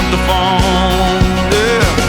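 Background country-rock music with no singing: sustained notes bending in pitch over a steady beat.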